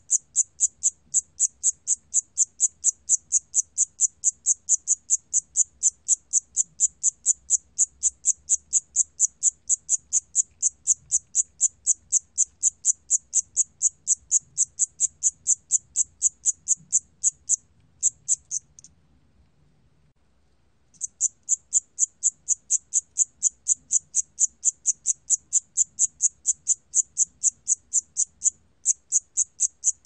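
Siamese cricket (샴귀뚜라미) calling, recorded at 28 °C: a steady train of short, high-pitched chirps, about three to four a second, broken by a pause of about two seconds a little past halfway.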